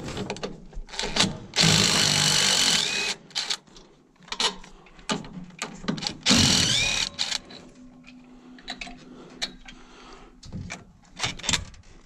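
DeWalt cordless drill with a socket running in two bursts, a longer one about a second and a half in and a shorter one around six seconds, undoing fasteners on a baler's bearing housing during strip-down. Metal clicks and knocks of the parts being handled in between.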